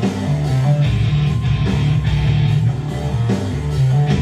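Hard rock music, an instrumental passage between sung lines, carried by electric guitar with a steady beat.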